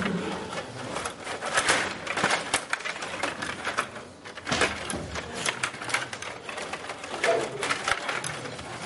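Stiga Play Off table hockey game in play: rapid, irregular clicking and clattering of the metal control rods and plastic players as they are pushed, pulled and spun, with the puck knocking against players and the rink.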